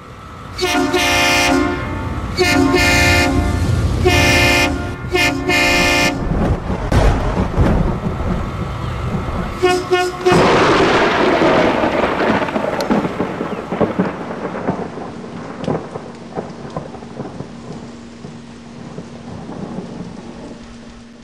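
HornBlasters Shocker XL train horn sounding five loud chord blasts, one after another, in the first six seconds, then a very short blast about ten seconds in. Right after it a loud rushing, rumbling noise starts suddenly and slowly fades away over the last ten seconds.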